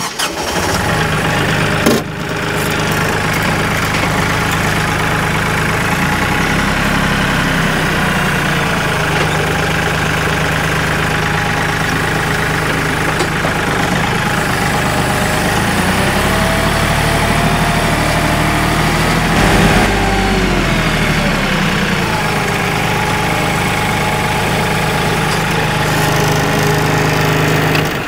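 Kioti CK3510SE compact tractor's three-cylinder diesel engine running steadily while it drives up to a firewood tote and lifts it on pallet forks, its pitch rising and falling a few times in the middle. A single knock sounds about two seconds in.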